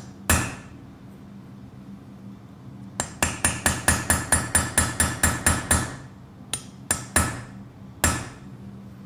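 Hammer tapping a line chisel into a metal pendant, pushing a groove into the metal rather than cutting material away. One strike, then a quick even run of about fifteen ringing taps at some five a second, then four more spaced taps.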